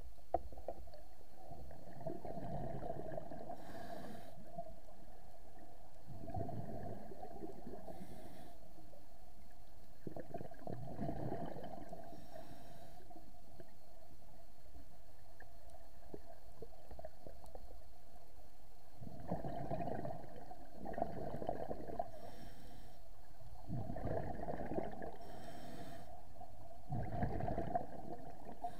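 Scuba diver breathing through a regulator, heard underwater: bursts of exhaled bubbles rumbling, most followed by a short hiss of inhalation, every few seconds. The breathing pauses for several seconds midway.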